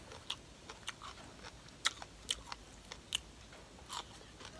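A person chewing a mouthful of food, with irregular sharp crunches and clicks.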